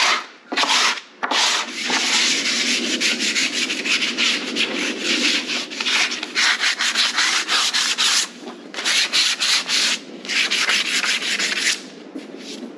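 Hand sanding a wooden mold plug with a sanding sponge: quick back-and-forth rubbing strokes, a few short ones at first, then long runs of rapid strokes broken by brief pauses, easing off near the end.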